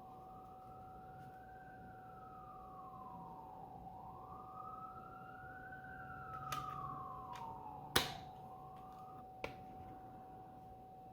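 A siren wailing, its pitch slowly rising and falling in long sweeps over a steady held tone. A sharp crack comes about eight seconds in, then a smaller click about a second and a half later.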